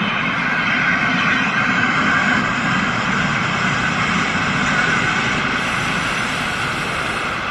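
ALn 776 diesel railcar running with a steady engine drone as it approaches.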